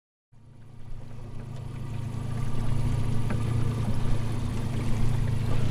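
Engine idling with a steady low hum, fading in from silence over the first couple of seconds.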